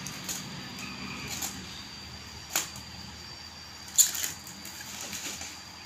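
Bubble wrap crinkling and crackling as it is handled and taped with a handheld packing-tape dispenser, with scattered sharp clicks and a louder snap about four seconds in.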